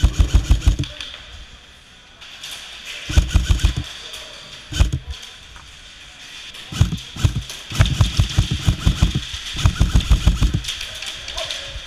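Airsoft rifle firing on full auto in several short bursts, each a rapid run of sharp clicks at roughly a dozen or more shots a second. The bursts come near the start, about three seconds in, around seven seconds in, and in a longer stretch near the end.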